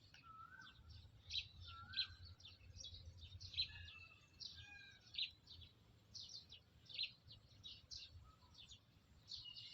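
Small birds chirping: a rapid scatter of short, high-pitched chirps, with a few brief whistled slurs mixed in, over a faint low rumble.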